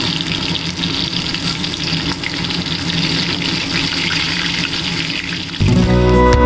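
Chicken lollipops deep-frying in hot oil: a steady sizzle. Strummed guitar music comes in suddenly near the end.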